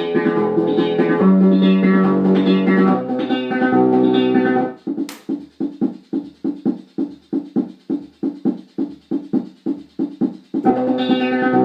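Orla Carousel electronic keyboard playing held chords, then switching to a run of short, quickly fading plucked-sounding notes at about three to four a second, with a sharp click at the change. Held chords return near the end.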